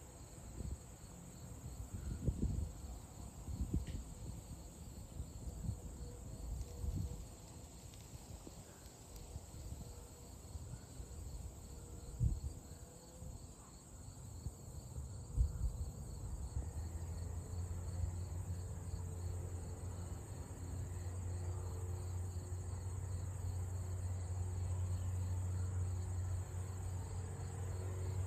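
Insects chirping faintly and steadily, with irregular low rumbles in the first half. From about halfway through, a single-engine Cessna's engine on its takeoff roll comes up as a steady low drone, growing louder toward the end.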